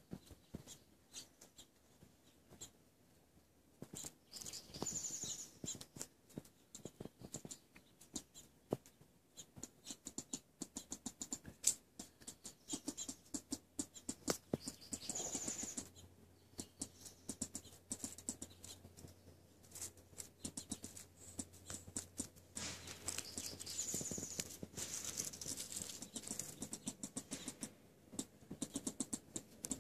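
A burrowing rodent digging just below the surface at its burrow opening, making irregular scratching, clicking and pattering as soil and seed husks are shifted. There are a few short high-pitched bursts, and the activity grows busier in the last third as the animal nears the opening.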